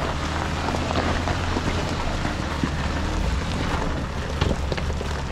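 Off-road vehicle driving over a rough desert track: a steady low engine drone under an even rush of tyre and wind noise, with scattered small clicks and knocks.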